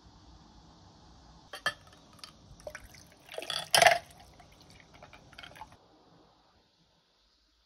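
A few sharp clinks of ice on glass, then iced coffee poured from a glass coffee server over ice into a stainless steel tumbler, the pour loudest just before four seconds in, followed by a few light clinks.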